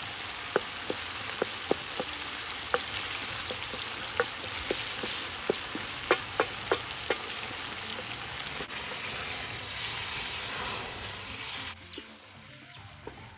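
Onion, tomato and garlic-ginger sauce sizzling in a wide metal pan while it is stirred with a wooden spoon, with irregular sharp clicks of the spoon against the pan. The sizzle drops away near the end.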